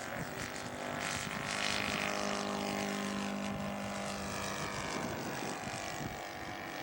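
Radio-controlled scale model airplane's Laser four-stroke glow engine running as the model makes a low overshoot pass, a steady buzzing drone that swells about a second in and eases off again as it goes by.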